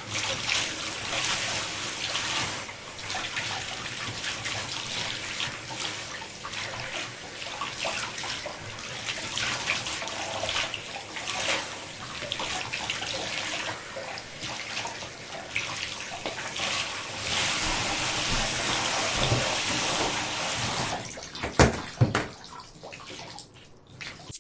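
Water running from a tap and splashing into a basin, rising and falling unevenly. Near the end come two sharp knocks, the loudest sounds, and the water dies away.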